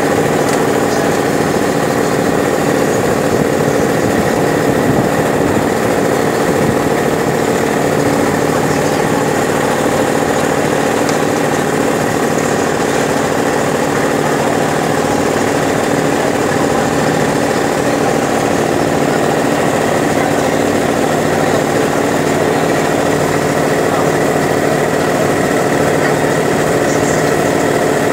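Boat engine running steadily at an even pitch, heard from on board the moving boat.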